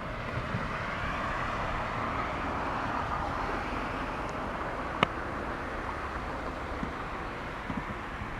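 A car passing on a road, its tyre and road noise swelling over the first couple of seconds and then slowly fading. A single sharp click about five seconds in.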